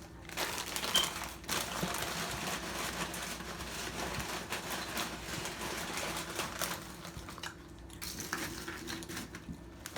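Close-miked eating sounds: chewing and mouth noises with small clicks and light crinkling.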